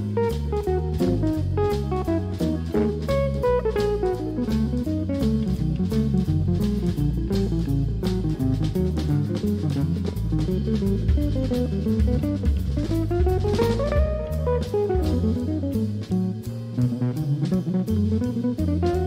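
Jazz trio playing live: electric guitar soloing in quick single-note lines over drum kit and bass, with a run that climbs and then falls back about two-thirds of the way in.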